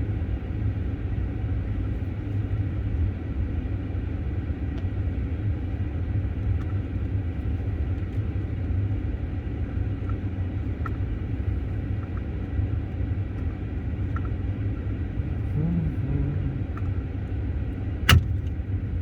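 Steady low rumble and fan hiss inside the cabin of a parked Nissan Leaf with its heater blowing full. A few faint ticks run through it, and one sharp click comes near the end.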